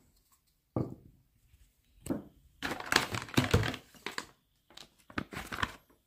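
Plastic laundry-product containers being handled: scattered crinkling rustles and light knocks, busiest about halfway through.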